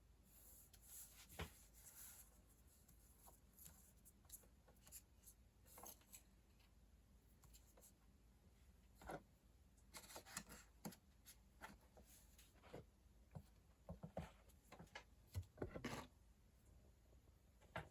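Faint handling noises: scattered light clicks, taps and brief rubbing of an iPhone and its packaging being handled, busier in the second half.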